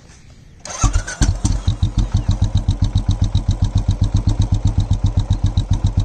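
Royal Enfield single-cylinder engine starting about a second in and settling into an even idle of exhaust thumps, about eight a second. A faint high whistle rides on the pulses from the turbo-whistle insert fitted inside the silencer.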